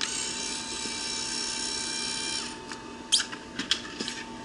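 A small electric motor starts suddenly and whines steadily for about two and a half seconds, then winds down, followed by several sharp clicks and knocks.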